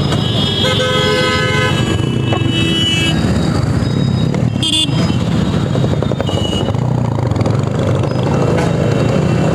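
Motorcycle running at road speed with steady engine and road rumble, while vehicle horns honk over the first three seconds and once more briefly near the middle.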